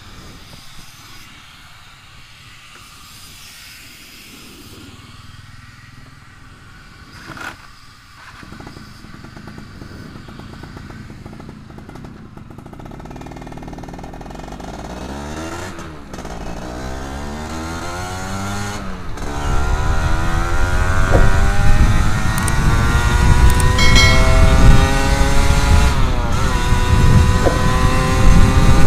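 Yamaha F1ZR 110cc two-stroke motorcycle with its stock exhaust gutted (baffles removed), being ridden off and accelerating: faint at first, then from about twelve seconds in the engine note climbs in pitch, drops back at each gear change and rises again, growing much louder toward the end.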